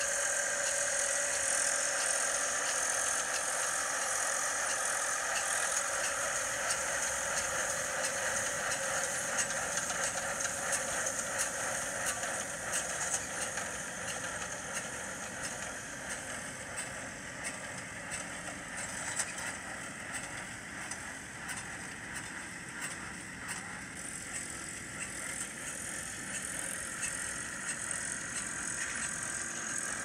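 Preet tractor engine running with a tractor-drawn Preet small square baler working straw, a steady mechanical din with faint scattered knocks. It sounds thin and tinny, with no bass, as played back through a small loudspeaker.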